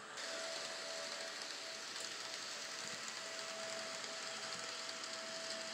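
N scale model locomotive running along the track: a steady hiss of wheels and motor, with a thin high whine that drops out and returns.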